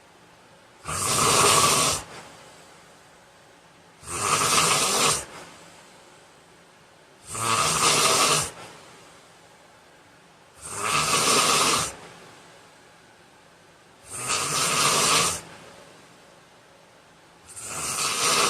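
A heavy-set man snoring in his sleep: six loud snores evenly spaced about every three seconds, each lasting a little over a second, with quiet between them.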